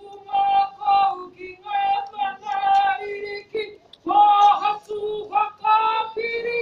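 Voices singing a slow melody of long held notes, with short breaks for breath between phrases.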